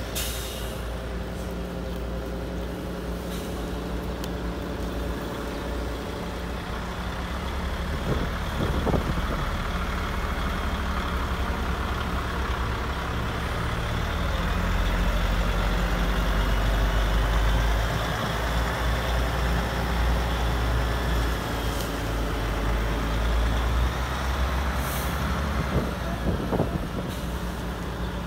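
Large radio-controlled hydraulic excavator at work: a steady low engine hum with a whine that rises and falls as the arm moves, loudest in the middle, and a few short hisses.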